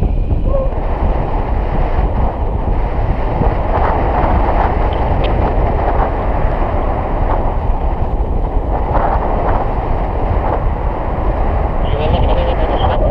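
Airflow buffeting a selfie-stick action camera's microphone during a tandem paraglider flight: a loud, steady rumbling wind noise.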